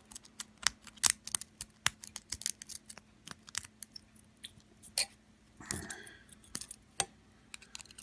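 Steel lock pick raked in the keyway of a brass pin-tumbler padlock under a tension wrench: irregular small metallic clicks and ticks as the pick passes over the pin stacks.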